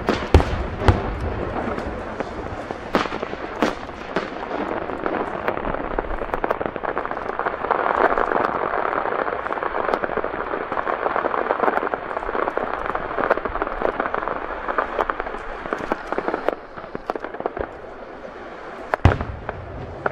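Aerial fireworks: loud shell bursts in the first second, then a long dense crackling of many small pops that thins out about 16 seconds in, and another loud boom near the end.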